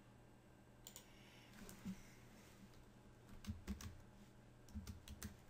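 Faint computer keyboard and mouse clicks: a handful of scattered taps about a second apart, over a low steady hum.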